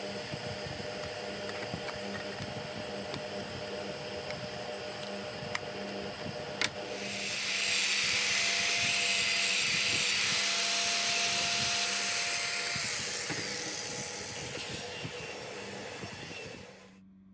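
Handheld disc sander with a red hook-and-loop pad running loudly with a hiss for about five seconds, then easing off. Before it comes in there is a steady workshop machine hum with a couple of clicks, and the sound cuts off suddenly near the end.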